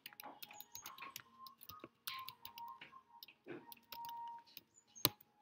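Typing on a computer keyboard: irregular, quick keystroke clicks, with one sharper click about five seconds in.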